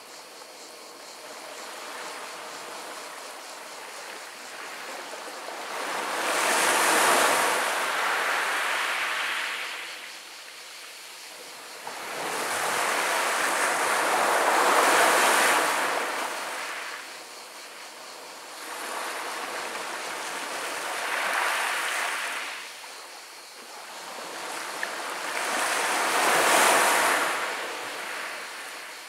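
Small Mediterranean waves washing up a pebble beach and rolling over the stones. The surf swells and fades four times, roughly every six seconds.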